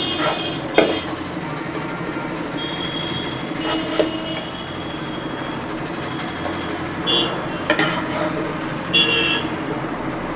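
A metal slotted spoon knocks and scrapes against a kadhai as cooked okra masala is scooped onto a plate: a few sharp knocks and short squeaky scrapes, over a steady background hum.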